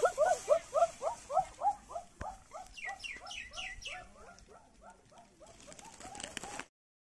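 Rapid run of animal calls, about four a second, that die away over several seconds and cut off abruptly near the end, with a few higher chirps partway through.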